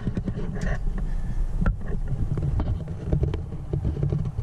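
Low rumble of wind buffeting the microphone, with a few light clicks and knocks scattered through it.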